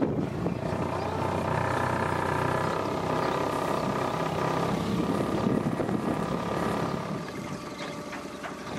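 Small boat's engine running steadily, heard from aboard, easing a little in level near the end.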